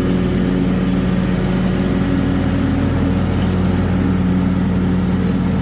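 Riding lawn mower engine running steadily at a constant speed, a loud, even hum.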